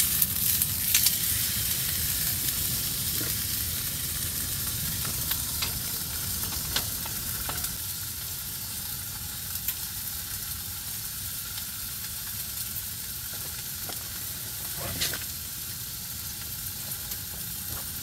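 Ribeye steak sizzling as it fries in a hot pan, a steady hiss with a few light clicks and knocks from handling the pan and steak.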